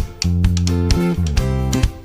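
Background music led by guitar, with chords changing about every half second over a steady beat.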